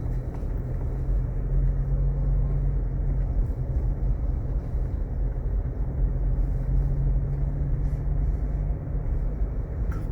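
Steady low drone of a running vehicle, engine and road noise.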